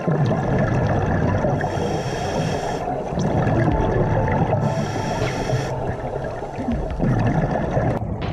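Underwater sound of scuba breathing through a regulator: a steady rush of water and bubble noise, with two hissing breaths about three seconds apart.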